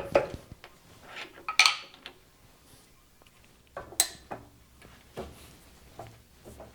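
Sharp metal clinks and knocks as a magnet is pressed into a bore turned for a press fit in an aluminum block: a handful of short contacts, with louder ones about one and a half and four seconds in.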